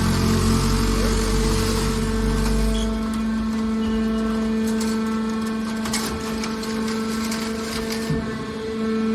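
Scrap car baler machinery running: a steady machine hum with a low rumble that fades out about three seconds in, and a few short knocks midway.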